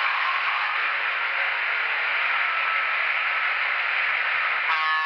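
Sound-equipped N scale EMD F3 diesel locomotives playing diesel engine sound through their small onboard speakers as they pull a train. The sound is a steady hiss, like radio static. Near the end a chord of steady tones starts.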